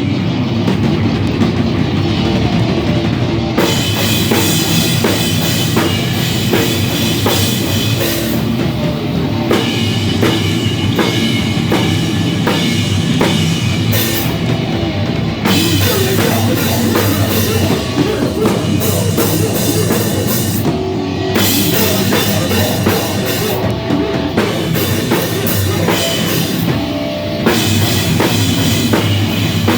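A live rock band playing loud and heavy: a drum kit with cymbals, electric guitar and bass. The cymbals drop out briefly several times.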